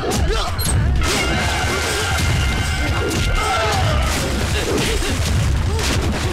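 Film soundtrack: background music over repeated crashes and blows, with shouts and grunts.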